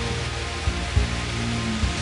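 Background music with a regular low beat over a steady dense hiss.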